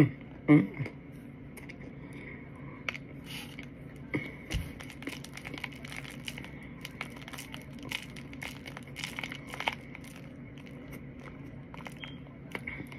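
Crunchy chewing of chunks of Argo cornstarch: many faint, short crackles and clicks at an irregular pace.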